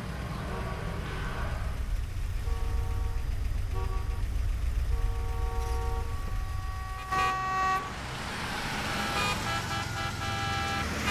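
Steady low engine rumble of a moving car. Car horns honk in long held blasts from about two seconds in, and near the end several horns sound at once, overlapping, over a hiss of traffic.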